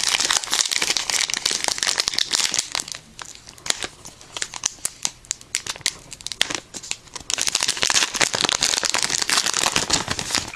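Yu-Gi-Oh booster pack wrapper crinkling as it is handled and torn open, in two spells of dense crackling with a quieter stretch in the middle.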